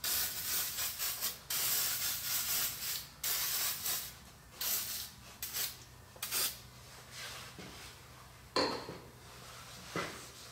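Aerosol can of light oil spraying onto a cast-iron mill table in a series of hisses, the longest about a second and a half, thinning to short spurts after about five seconds. Near the end, two brief sounds of a hand wiping the oil across the metal.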